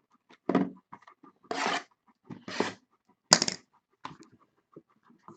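A pet dog barking indoors, four short barks spread over about three seconds, with the last one the sharpest.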